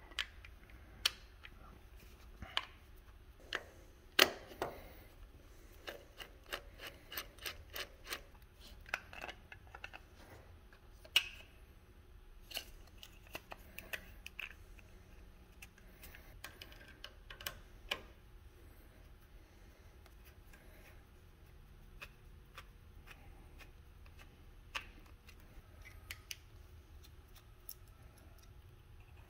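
Irregular small clicks and taps of a plastic electrical plug, its brass terminals and a screwdriver being handled while a power cord is wired, with two sharper knocks about four and eleven seconds in.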